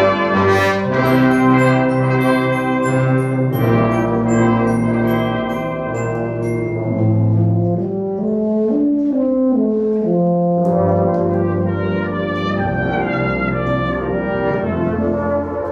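Brass band playing, trombones and cornets together, sustaining full chords over a bass line that moves from note to note.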